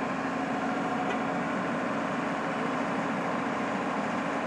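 Heavy crane's diesel engine running steadily as it holds a cog railway car in the air.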